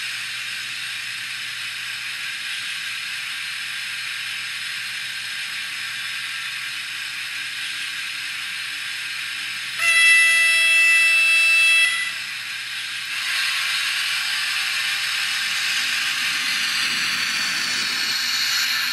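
Sound decoder of a Piko H0 model G1206 diesel locomotive playing a diesel engine idling through the model's small speaker, then a loud horn for about two seconds near the middle. After the horn the engine sound grows louder as the model pulls away, with a faint rising whine near the end.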